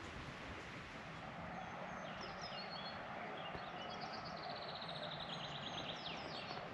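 A small songbird singing: a phrase of high chirps, then a fast trill of rapidly repeated notes, over a steady rushing background noise.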